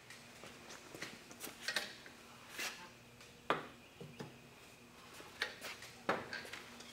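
Door and latch of an Evenheat electric heat-treating oven being worked while the knife blade is handled in the chamber: scattered small metallic clicks and knocks, sharpest about three and a half seconds in and again about six seconds in as the door is shut and latched.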